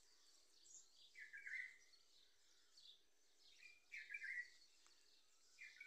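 Faint outdoor birdsong: a short call repeated three times, about two seconds apart, over fainter high twittering.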